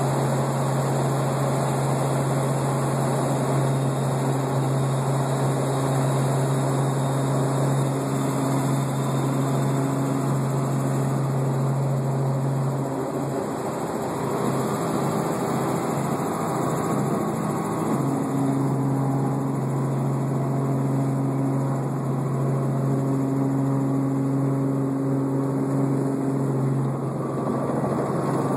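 Helicopter rotor and engine running steadily: a loud low drone with a constant hum, easing briefly about halfway through.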